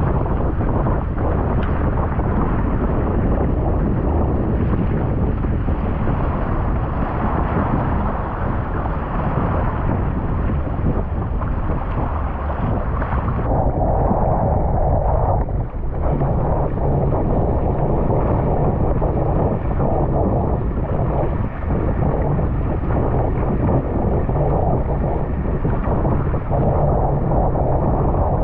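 Strong wind, 25 to 35 knots, buffeting the microphone, over the rush and splash of water as a surfski runs in rough, wind-driven sea. The noise is loud and steady, surging and easing.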